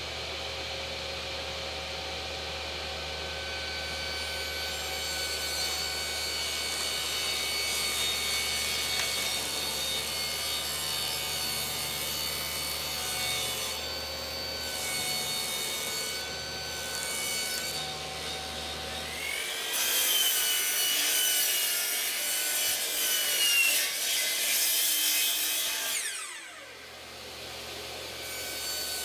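Table saw running steadily with a motor hum and whine, then ripping a strip off a sheet of half-inch plywood. The cut begins about two-thirds of the way in and runs for around six seconds, louder and hissier than the idle saw.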